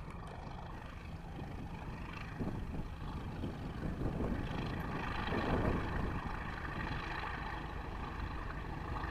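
Steam locomotive hauling a passenger train of carriages, its exhaust working and growing louder about halfway through, with wind rumbling on the microphone.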